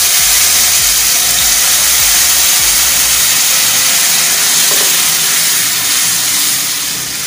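Pineapple sugar syrup hitting semolina roasted in ghee in a hot kadhai, sizzling and hissing loudly while a spatula stirs it in. The sizzle eases a little near the end.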